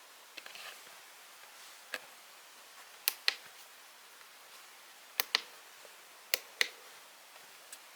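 Button clicks in three close pairs, each like a press and release, with a few fainter clicks and taps before them.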